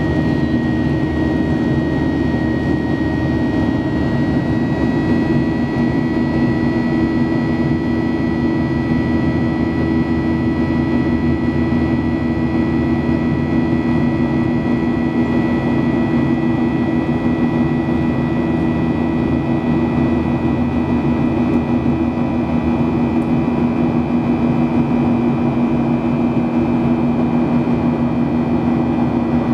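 Cabin noise of a Boeing 737-800 in the climb after takeoff: its CFM56-7B turbofan engines running steadily, a loud even hum with several held whining tones over the rush of air, one high whine edging up slightly about four seconds in.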